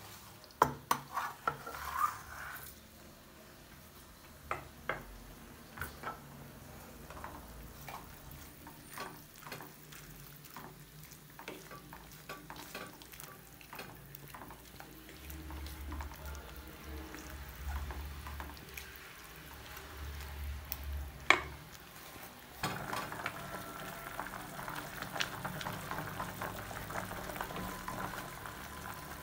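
Wooden stirring stick knocking and scraping against an aluminium pot as nettle leaves are stirred in water, in scattered knocks, several in the first few seconds and one loud knock about three quarters of the way through. Soon after that loud knock a steady hiss sets in and continues under the stirring.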